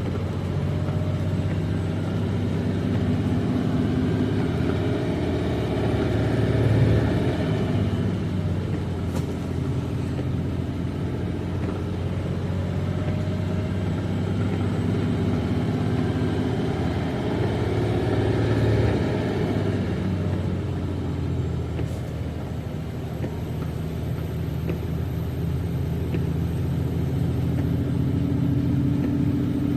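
Semi truck's diesel engine heard from inside the cab on a mountain descent, the engine brake holding the loaded truck back. The engine note is steady, swelling and shifting in pitch twice.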